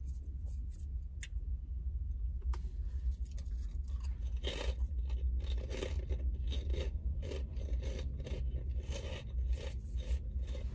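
Close-up chewing of a mouthful of crunchy salad, the crunches coming about twice a second and growing louder from about four seconds in, over a steady low hum.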